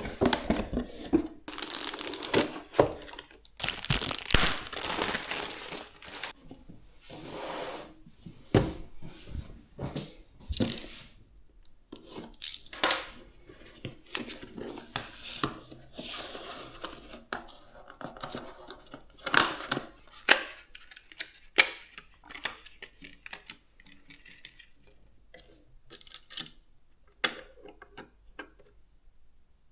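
Hands unpacking and handling PC parts: packaging tearing and crinkling, with irregular clicks and knocks of hardware being set down and handled, thinning to a few faint clicks near the end.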